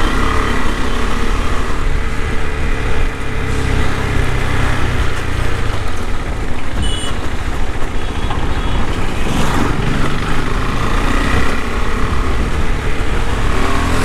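KTM 390 Adventure's single-cylinder engine running under way, heard from the rider's seat with road and wind noise; its note drops about six seconds in. A few short high beeps sound about seven seconds in.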